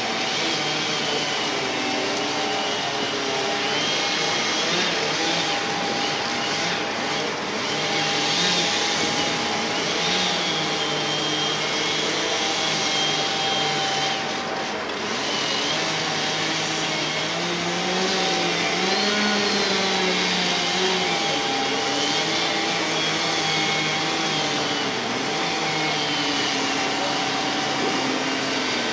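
Tracked Cat excavator with a grapple felling head running continuously, its engine and hydraulics giving a steady whine under an engine note that rises and falls.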